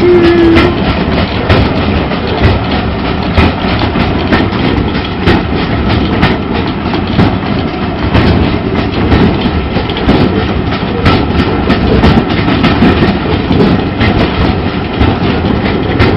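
Steam-hauled railway carriage running along, heard from inside the wooden carriage: a steady rumble with the irregular clatter and clicks of wheels over rail joints.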